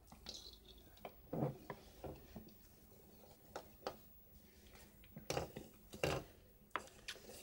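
Wooden spatula folding thick semolina cake batter in a glass bowl: soft, irregular scrapes and knocks of the spatula against the glass, a few times over several seconds.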